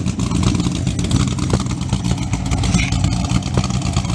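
LS V8 of a Pontiac GTO running at idle through headers, catless mid-pipes and Borla mufflers, a steady, choppy pulsing exhaust note. It runs on freshly fitted CNC-ported Trick Flow 225 heads without a tune yet, which the owner says it definitely needs.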